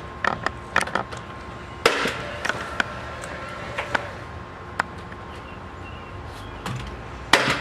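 Paslode cordless nailer firing nails into a door jamb: sharp bangs, the loudest about two seconds in and again near the end, with a few lighter knocks in between.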